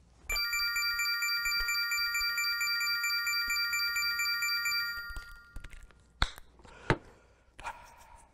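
A bright, shimmering chime sound effect with a fast sparkle on top, held for about five seconds like a video-game combo jingle. It is followed by two sharp clicks less than a second apart.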